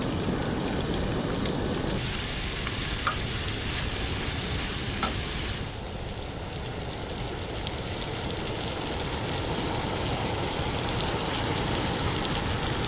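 Mushroom pieces sizzling steadily as they fry in a stainless steel frying pan on a camp stove. The sizzle is brighter and louder for a few seconds, from about two seconds in, then settles to a softer, even frying hiss.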